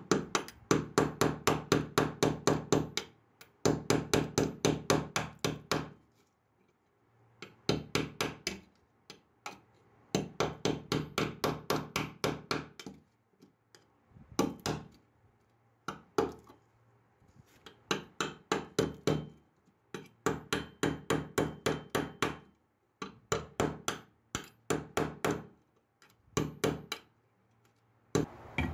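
Hammer striking a steel chisel held against a rusty steel masonry trowel blade, chipping off its hardened white crust: quick runs of sharp metal taps, about four a second, in bursts of a few seconds with short pauses between.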